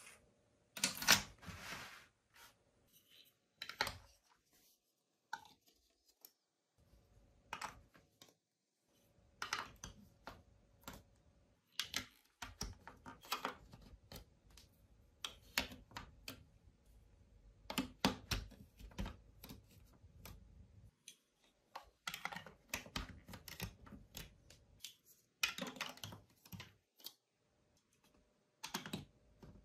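Large plastic toy building blocks and marble-run chute pieces being set down and pressed onto a studded plastic baseplate: irregular clusters of clicks and clatters with short pauses between them.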